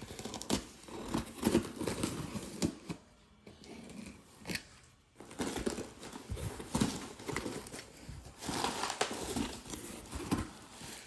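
A delivery parcel being handled and torn at to open it: irregular rustling and crinkling of the packaging, with scattered taps and clicks.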